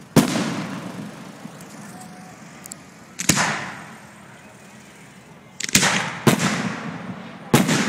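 Aerial firework shells bursting overhead: about five sharp bangs, one just after the start, one near the middle and three close together near the end, each trailing off in an echoing rumble.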